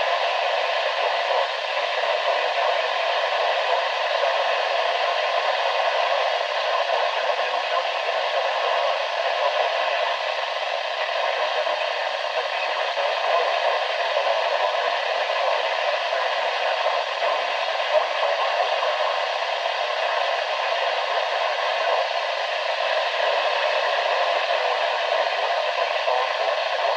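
NOAA weather radio receiver giving off a steady hiss of static through its small speaker, with no broadcast voice coming through.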